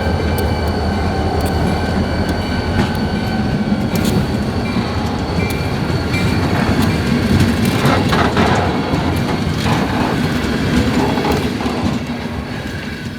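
Freight train rolling past with a steady low rumble, its wheels clicking repeatedly over the rail joints, and a faint steady squeal from the wheels.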